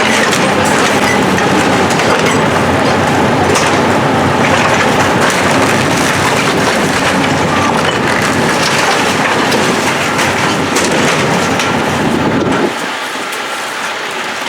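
Heavy demolition machinery tearing down a building: a diesel engine running under a continuous din of crunching, cracking and splintering debris. Near the end the deep rumble drops away.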